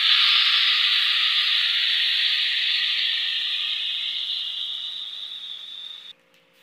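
Chicken gizzards and livers sizzling in hot oil in a pan with garlic, ginger and onion. The sizzle slowly fades, then cuts off abruptly near the end.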